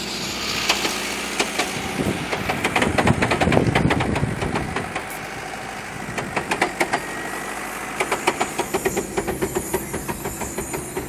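Mitsubishi Pajero driving over sand, heard from inside the cab: the engine runs under a quick series of knocks and rattles, loudest about three seconds in, with further runs of rapid clicks in the second half.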